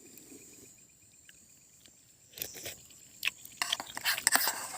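Faint steady high trill of night insects. About two and a half seconds in, close irregular crackling and rustling starts and grows louder.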